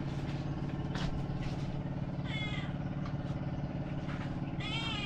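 A motor engine running steadily at idle, a low even drone, with a few light clicks and two brief high-pitched calls, one about two seconds in and one near the end.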